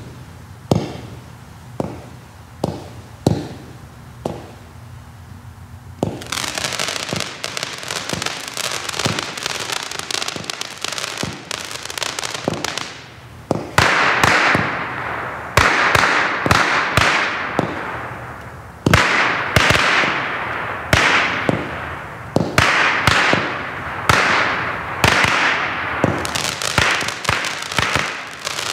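A Black Cat Fireworks Fiesta 96-shot consumer cake firing. At first single shots pop out a little under a second apart, then from about six seconds in a fast, dense string of shots follows. Past the halfway point come repeated loud bursts, each fading over about a second, with shots still firing between them.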